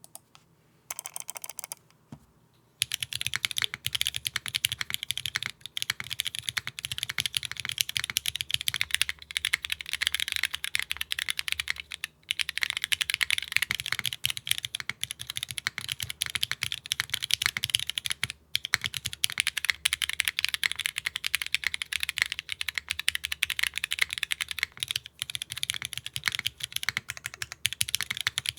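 Fast, continuous typing on a custom mechanical keyboard with Cherry MX Black linear switches and GMK keycaps, no foam inside the case. The clacking starts about three seconds in and stops briefly twice, about twelve and eighteen seconds in.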